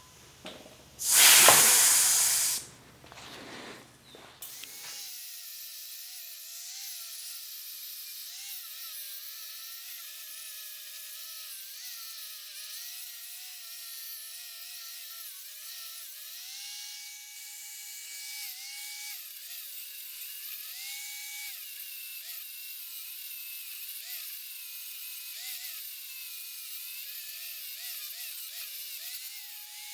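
A brief, loud rushing burst, then the steady high whine of a small high-speed motor with hiss, its pitch wandering up and down as the load changes.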